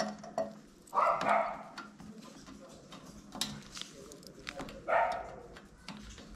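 Sharp clicks of plastic push clips being prised out of motorcycle bodywork panels. Two short, louder bursts of noise come about a second in and about five seconds in.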